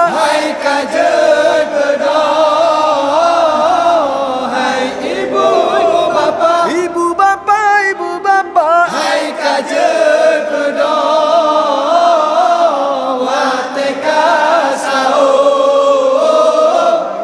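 A group of young men chanting a sahur wake-up song together in Acehnese style, voices in unison on long held notes with wavering, ornamented pitch. It is the call that wakes people for the pre-dawn Ramadan meal.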